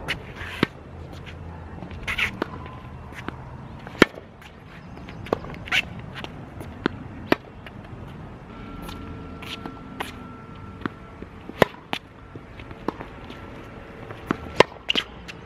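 Tennis balls struck back and forth in a rally on a hard court: sharp pops of the Tecnifibre TFight ISO 300 racquet's strings and the partner's racquet hitting the ball, with the ball bouncing on the court. Footsteps move between shots, and the hits come irregularly every second or two, the loudest about four seconds in.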